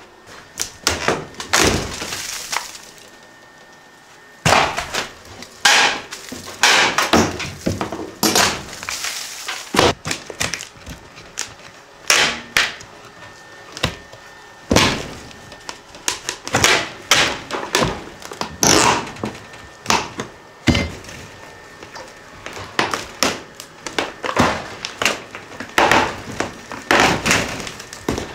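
Rotted mobile-home floor decking being broken and pried out by hand: repeated cracking, knocking and thuds of wood at an irregular pace, with a short pause about three seconds in.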